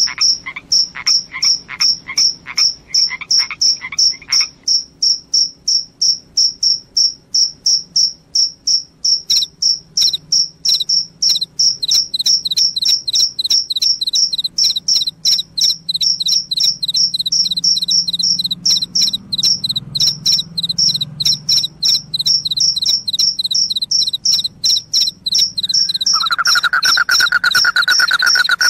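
Crickets chirping loudly in rapid, evenly spaced high-pitched pulses. A second cricket joins at a slightly lower pitch about ten seconds in. Near the end a lower, faster trill sets in beneath them.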